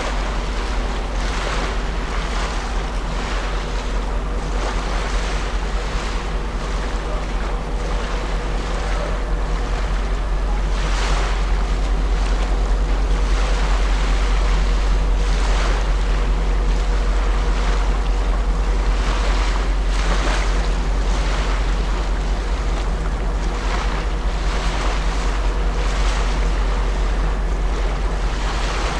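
Wind buffeting the microphone and small waves washing in surges every few seconds, over the steady low hum of a large cruise ship, the MSC Poesia, moving slowly past close by.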